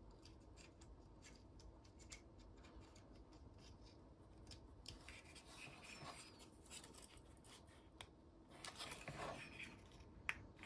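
Faint clicks and rubbing of small plastic parts being handled, as a plastic cover is pressed onto a plastic display frame, with a slightly longer rub late on.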